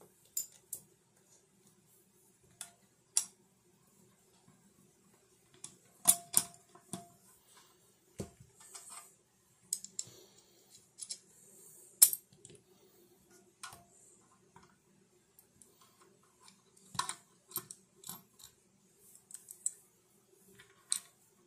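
Small metal hardware being handled: irregular clicks and clinks as a steel mounting plate, bolts and a metal mic adapter bracket knock together, a few with a short ring. The two loudest clinks come about six and twelve seconds in.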